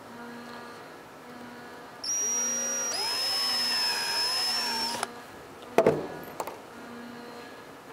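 Power drill drilling through the plastic snowmobile hood at the vent's mounting hole. It runs for about three seconds with a whine that rises and wavers in pitch, then stops abruptly. A few sharp knocks follow about a second later.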